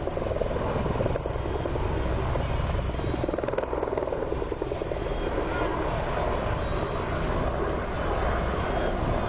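Helicopter rotor chop, a steady rapid pulsing with engine noise underneath, from a helicopter working over the fire.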